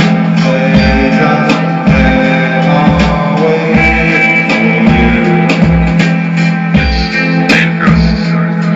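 Rock music: guitar over a steady low beat of about two thumps a second.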